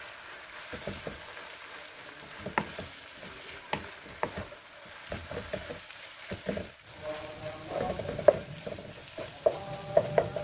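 Food sizzling in hot oil in a wok while it is stirred, the spatula giving frequent sharp knocks and scrapes against the pan, with a ringing scrape in the last few seconds.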